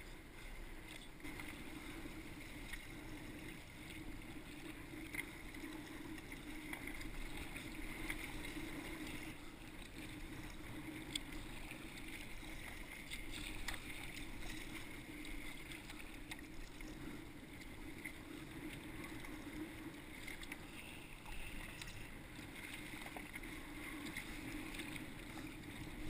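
Water splashing and lapping against a sea kayak's hull as it is paddled through light chop, with paddle strokes dipping in.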